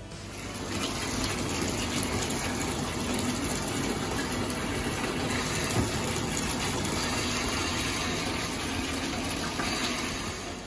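Bathtub tap running, water pouring into a filling tub: a steady rush that builds up in the first second and stops near the end.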